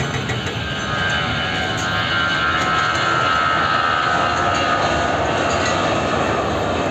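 Jet airliner's engines passing close by: a continuous rushing noise with a high engine whine that swells about halfway through and then drops slightly in pitch.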